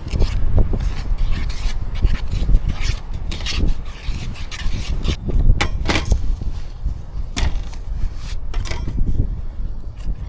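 Gusty wind buffeting the microphone, with a steady rumble that swells and falls, mixed with scattered clicks, knocks and scrapes.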